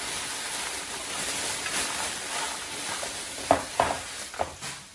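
A clear plastic bag rustling and crinkling as it is pulled off an electric teppanyaki grill and crumpled up by hand, with a few sharper crackles about three and a half seconds in.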